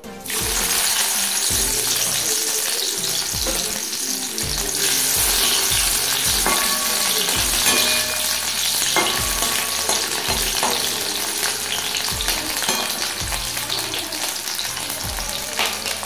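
Broccoli florets dropped into hot oil in a wok, sizzling. The sizzle starts suddenly just after the start and keeps going as a spatula stirs them. Background music with a steady low beat plays underneath.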